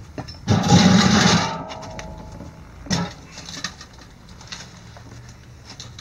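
Large plastic lower cowling panel of a Yamaha F250XA outboard being handled and fitted against the motor: a loud scrape lasting about a second, starting half a second in, then a sharp knock about three seconds in and a few lighter taps.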